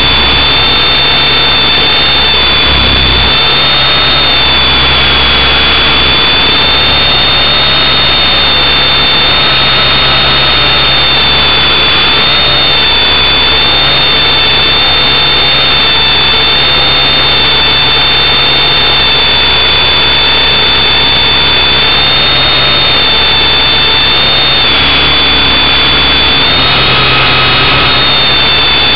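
A small motor whining loudly and steadily, high-pitched over a dense rushing noise, its pitch stepping slightly up and down a few times.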